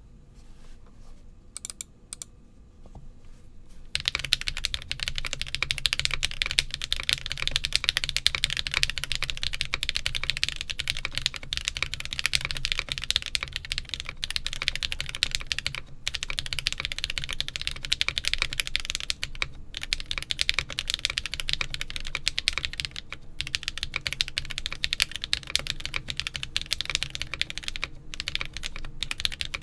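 Continuous typing on a Geonworks Frog TKL mechanical keyboard with lubed Akko V3 Cream Yellow linear switches, an aluminum plate, GMK cherry-profile keycaps and no case or plate foam. A few scattered keystrokes come first, then steady fast typing starts about four seconds in.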